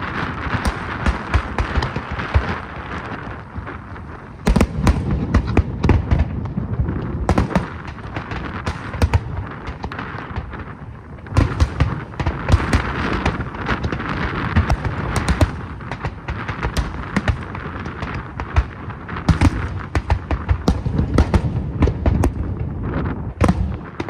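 Aerial fireworks display: a dense, continuous run of bursting shells, rapid bangs with crackling in between, coming in heavier flurries about four seconds in, around twelve seconds in and near the end.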